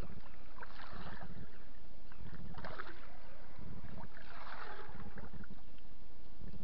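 Topwater muskie lure being worked across the lake surface with a walk-the-dog retrieve, splashing and swishing in bursts about a second in, near three seconds and again around four to five seconds, over a low rhythmic churning that repeats a little more than once a second.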